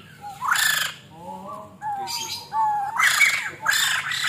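White-crested laughingthrush calling: four harsh, rasping bursts with short whistled notes between them.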